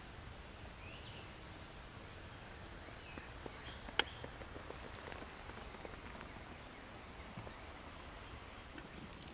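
Faint woodland ambience: scattered short, high bird chirps over a steady low background, with one sharp click about four seconds in.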